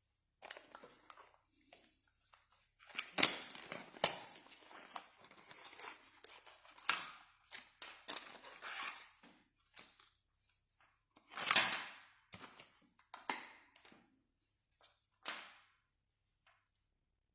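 Handling noise from unpacking a small boxed gadget: irregular rustling, tearing and crinkling of packaging, with sharp clicks and knocks, loudest in a few short spells and dying away near the end.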